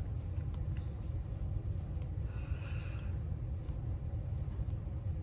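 Steady low background hum, with a soft breath-like hiss about two and a half seconds in.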